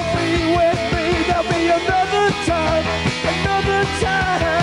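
Rock band playing live: a steady drum beat under bass and electric guitar, with a wavering melodic line on top.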